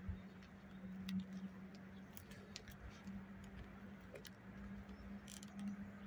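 Honeybees humming steadily in an open hive, with scattered sharp clicks and creaks as a metal hive tool levers the wooden frames apart.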